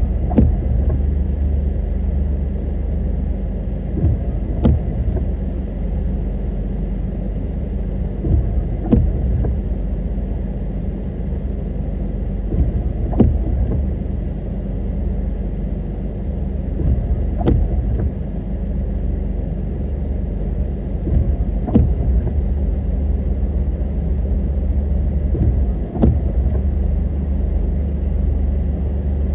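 Car driving along a road: a steady low rumble of engine and road noise, with a short click repeating about every four seconds.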